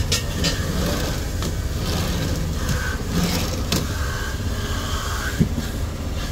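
Steady low background rumble, with a few scattered clicks and knocks from handling, the sharpest about five seconds in.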